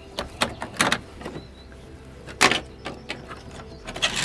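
Seashells clicking and knocking against each other and a hard surface as they are handled and sorted: a handful of separate sharp clicks, the loudest about two and a half seconds in.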